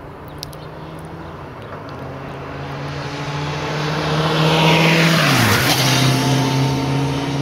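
Escort motorcycles approaching and passing close by. The engine note swells and drops in pitch as the lead motorcycle goes past about five and a half seconds in, and more motorcycles follow behind it.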